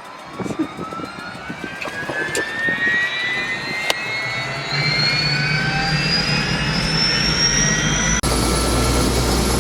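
Helicopter turbine engine starting up: a whine rises steadily in pitch as the turbine spools up, and a low hum builds in from about halfway. Near the end the sound cuts abruptly to the louder, steady running of the helicopter.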